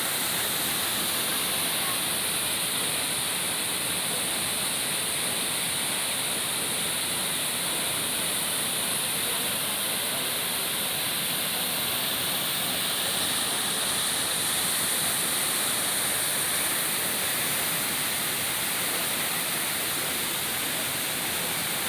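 Steady, unbroken noise of a large waterfall's water falling and crashing, an even rushing hiss that holds the same level throughout.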